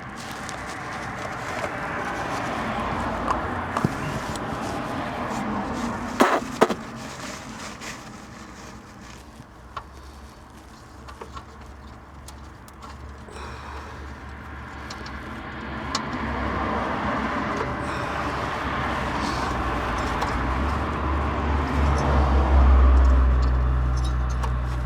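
Steady background noise with a low rumble building over the last few seconds, and a few small sharp clicks about six seconds in, likely from the glow plug and tools being handled.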